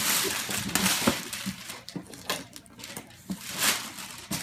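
Wrapping paper rustling and tearing as a present is unwrapped, with a few short sharp clicks and taps from the package being handled.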